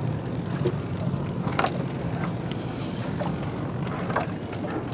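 Small boat engine running steadily, with scattered light clicks and knocks over it.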